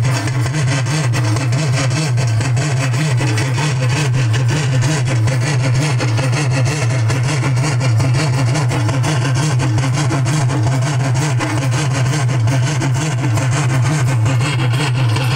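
Loud, distorted music from the stage loudspeakers, accompanying the dance, with a heavy, steady low drone underneath.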